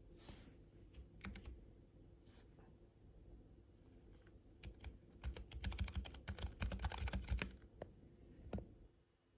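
Keys being pressed on a Keychron K7 low-profile keyboard with banana switches: a few scattered single keystrokes, then a fast run of typing for about three seconds, then two last single presses.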